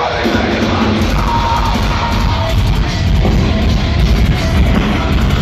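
Loud live heavy metal band playing: drums and guitars with a yelled, sung vocal over them, heard from within the crowd.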